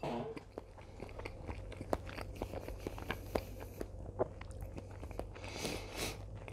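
A person chewing a bite of sauced fried chicken close to a clip-on microphone, with irregular crunching and wet mouth clicks.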